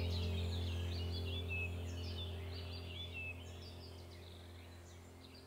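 Steady low hum that fades out gradually, with bird-like chirps repeating throughout.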